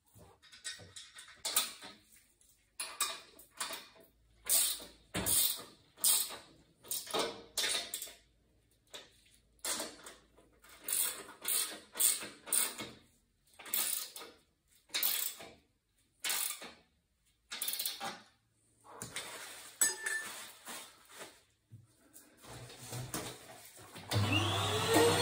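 A hand tool scraping repeatedly inside an oil-fired condensing boiler's combustion chamber and heat exchanger, about one stroke a second, as the chamber is cleaned during a service. About a second before the end a vacuum cleaner starts, its whine rising and then holding steady.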